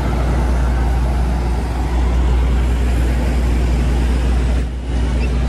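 A heavy vehicle's engine running with a steady low hum amid street traffic noise, briefly dipping about four and a half seconds in.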